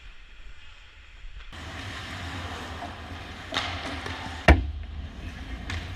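Ice hockey play in an arena: a steady wash of skates on ice and rink noise that gets louder about a second and a half in, with a smaller knock partway through and one loud, sharp crack of a stick or puck impact about four and a half seconds in.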